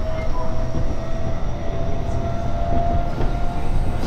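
JR East Joban Line commuter train heard from inside the car while running: a steady rumble of wheels on rails, with a thin whine that rises slightly in pitch.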